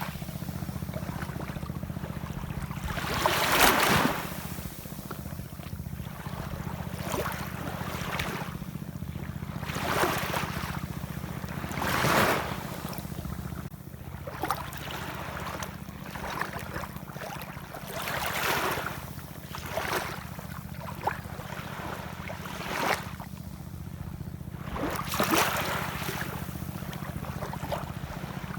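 Ocean waves washing in, a surge of surf every few seconds, loudest about three and twelve seconds in, over a steady low rumble.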